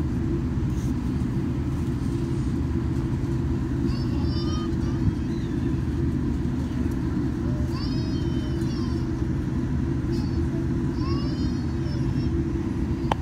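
Steady low cabin rumble of a Boeing 787-9 taxiing, its engines running at low power, heard from inside the cabin by a window seat. A single sharp click near the end.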